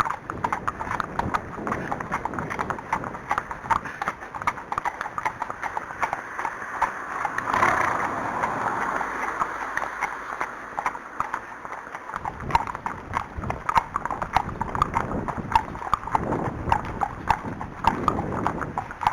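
Hooves of a barefoot Arabian horse clip-clopping steadily along the trail. A brief rushing noise about eight seconds in is the loudest moment.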